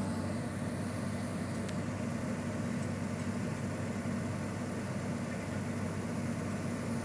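Komatsu hydraulic excavator's diesel engine running steadily with an even, low drone.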